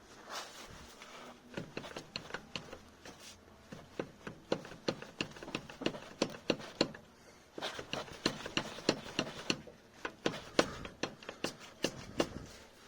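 A series of sharp clicks and knocks, irregular and a few a second, with short pauses about halfway through and near the end.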